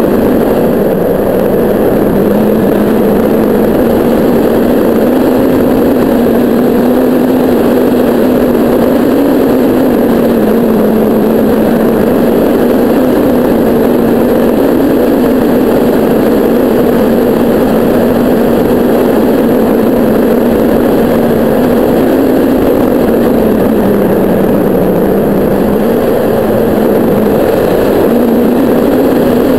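Airflow of a hang glider in flight rushing over a wing-mounted camera: loud, steady wind noise with a low hum that wavers slightly in pitch.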